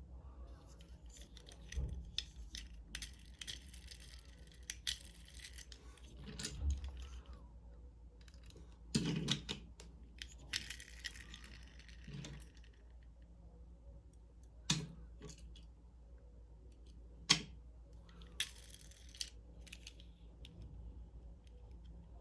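Hands handling and opening Hot Wheels die-cast car packaging: patches of crinkly plastic and cardboard rustling, broken by sharp clicks and knocks about half a dozen times.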